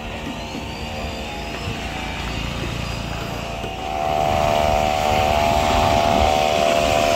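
An engine running steadily with an even hum, growing louder about four seconds in.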